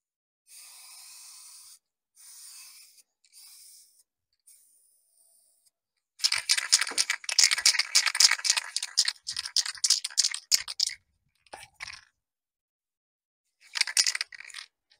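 Aerosol spray-paint can spraying white base paint in three short hissing bursts, the first about a second long. From about six seconds in comes a louder stretch of dense crackling and scraping, with another short burst of it near the end.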